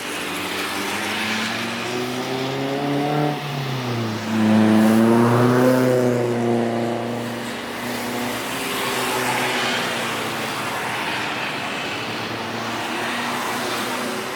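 Jet airliner passing close by, its engine noise swelling to its loudest about four seconds in and easing off after a couple of seconds, with a hollow tone that sweeps down and back up as it goes over.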